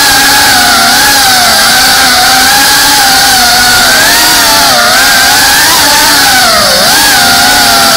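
FPV quadcopter's electric motors and propellers whining, heard close from the on-board camera. The pitch wavers up and down with the throttle and dips sharply about seven seconds in.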